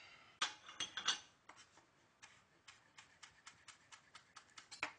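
Kitchen knife chopping chives on a cutting board: a few sharper knocks in the first second, then quick, even taps about five a second.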